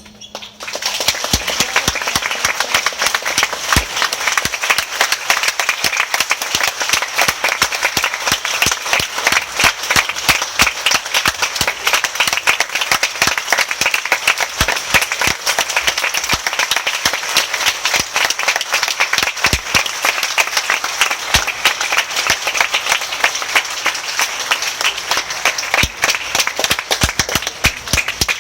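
Audience applauding after a wind band performance ends: dense, steady clapping from a large crowd in a big hall.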